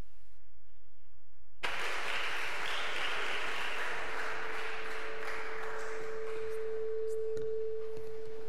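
Audience applauding, starting suddenly a second and a half in and slowly dying away. Beneath it, from about halfway, a steady mid-pitched ring from the PA builds up and cuts off suddenly at the end: feedback from the lectern microphone while it is being set up.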